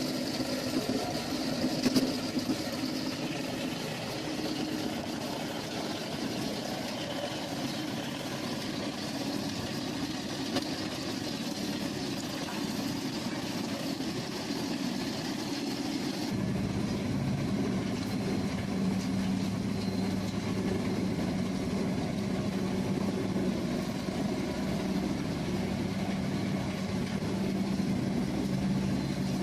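Heavy machinery engines running. About halfway through the sound changes abruptly to a steadier, deeper engine hum with a constant low tone.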